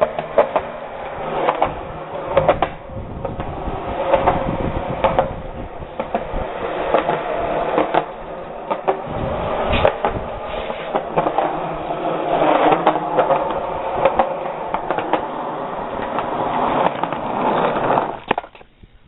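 BMX bike rolling on concrete: a steady rumble of tyres on pavement with many short knocks and rattles from the bike. It fades and cuts off near the end.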